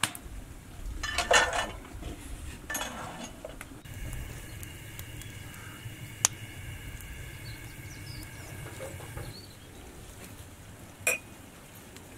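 Dishes and trays being handled: rustling in the first few seconds and sharp single clinks of glass or metal, one in the middle and one near the end. A steady high hum runs under it for about five seconds in the middle.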